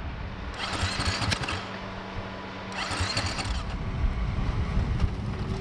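Rally motorcycle's starter cranking the engine in two short attempts of about a second each, with a rising whine and no sign of the engine catching: the bike won't start.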